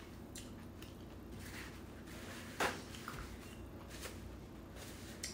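Faint close-up eating sounds: chewing and mouth noises, with a paper napkin handled near the end. A single short, sharp sound, falling in pitch, stands out about two and a half seconds in.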